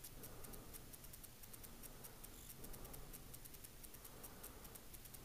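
Near silence: faint room tone with a quick, faint, high ticking all through.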